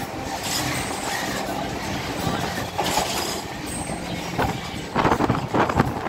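Passenger train running along the track, heard from inside the carriage at an open window: a steady rumble and rattle of wheels on rails, with a louder stretch of clattering about five seconds in.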